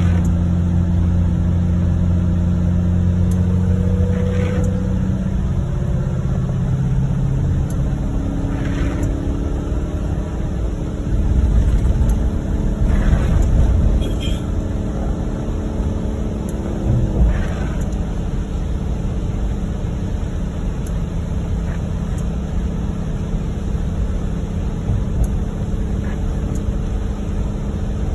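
Engine hum and wet-road tyre noise heard inside a vehicle's cabin while driving in heavy rain. The engine's tone shifts during the first several seconds, and a louder stretch of rumbling comes near the middle.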